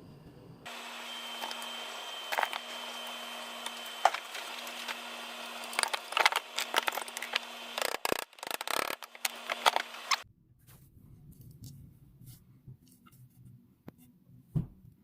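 Knocks and clatter of hand work on the fork with tools and wood, over a steady hum and hiss; the knocks come thickest toward the end, then the hum cuts off about ten seconds in, leaving only a few faint clicks.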